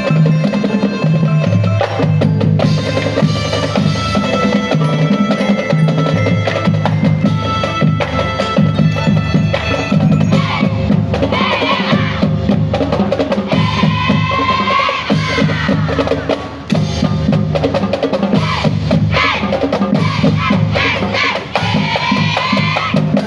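A marching band playing: a snare and bass drum line driving a steady beat, with rolls, under sustained melody instruments.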